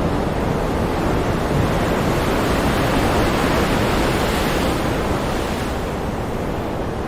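Strong wind blowing ahead of a thunderstorm, with a deep rumble of wind on the microphone. A gust swells about two seconds in and dies back near the end.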